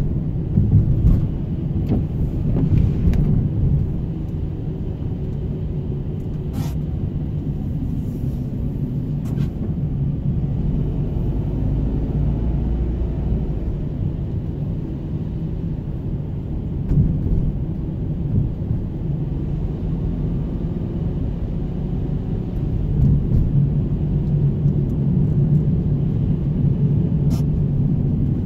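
Car driving on a wet village road, heard from inside the cabin: a steady low rumble of engine and tyres, with a few clicks.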